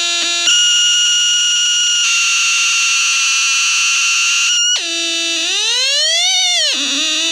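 Homemade electronic alarm circuit sounding a string of buzzy siren tones. A held low tone jumps to a higher held tone for about four seconds, then drops, sweeps up and back down once in a siren-like wail, and settles into a low wavering tone.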